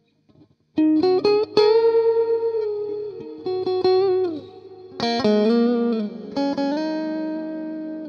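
Electric guitar chords played through a software amp with two plate reverbs layered over each other, giving a pretty intense, long, washing decay. The chords come in three groups after a short silence, and a few held notes dip downward in pitch.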